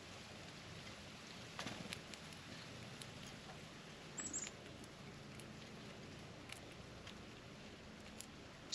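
Scattered light taps and clicks of animals picking at peanuts on a plate, with a brief, very high double chirp from a small bird about four seconds in.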